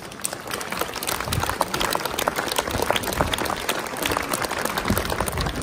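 Crowd applauding: a dense, irregular patter of hand claps.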